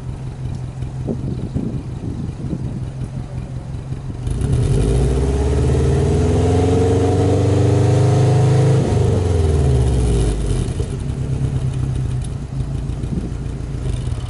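Subaru Impreza WRX's turbocharged flat-four engine heard at the exhaust tip. It idles with a steady rumble, is revved up about four seconds in and held high for several seconds, then drops back to idle.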